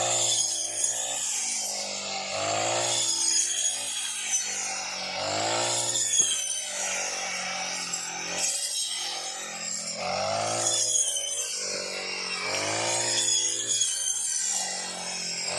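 Brush cutter's small two-stroke engine revving up and easing off again and again, about every two and a half seconds, as its blade cuts through rice stalks.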